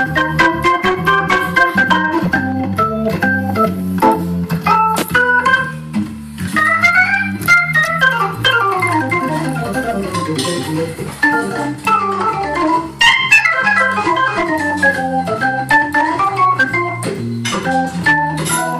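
Hammond organ played solo in a jazz-blues style: fast runs of notes climbing and falling in the right hand over a bass line that steps from note to note, with crisp clicks on the attacks.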